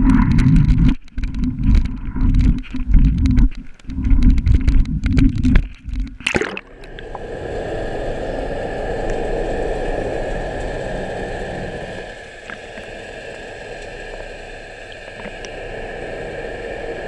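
Action camera in its waterproof housing beside a ship's steel hull: uneven buffeting from wind and water for about six seconds, a sharp splash as it plunges under, then a steady muffled underwater hum with a faint high whine and a few light ticks.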